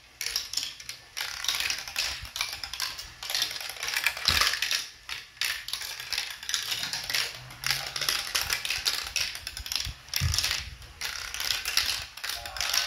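Marbles clicking and rattling in quick, irregular succession as they roll and drop through the plastic tracks, spirals and tubes of an elevator marble run.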